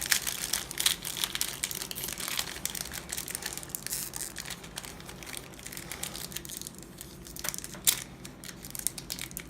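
Foil wrapper of a Yu-Gi-Oh booster pack being torn open and crinkled by hand: an irregular run of crackles and rips. The old wrapper comes apart in pieces as it is opened.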